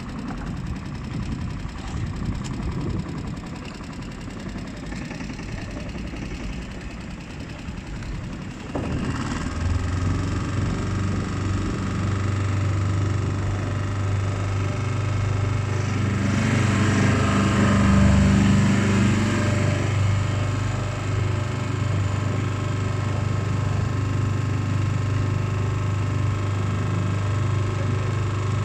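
Small petrol outboard motor of a hire motorboat running; about nine seconds in it grows louder and settles into a steady low drone.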